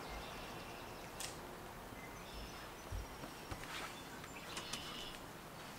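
Quiet outdoor ambience: a faint steady background hiss with a few short, distant bird chirps and a few faint knocks.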